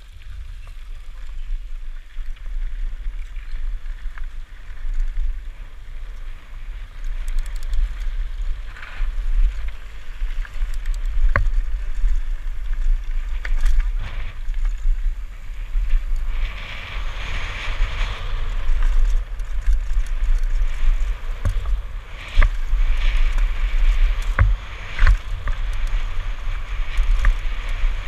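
Wind buffeting a helmet-mounted action camera's microphone as a mountain bike descends a gravel trail, with the hiss of tyres over loose gravel and scattered sharp knocks and rattles from the bike over bumps. The gravel hiss grows louder about halfway through as the speed picks up.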